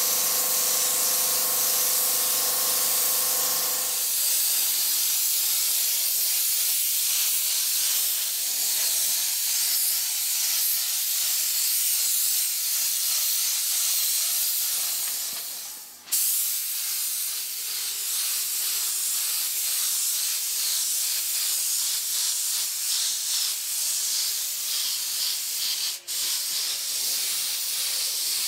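Compressed-air paint spray gun hissing steadily as it sprays paint onto a bus chassis. The air cuts off sharply twice, briefly, and a faint steady tone lies under the hiss for the first few seconds.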